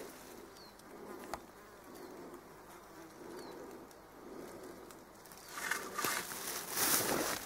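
A flying insect buzzing close by, its hum swelling and fading several times as it moves about. There is a single click early on, and a burst of loud rustling noise near the end.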